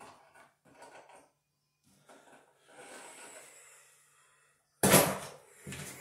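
Faint clicks and scraping of a screwdriver turning a screw into a metal light-switch cover plate, then a sudden loud knock near the end.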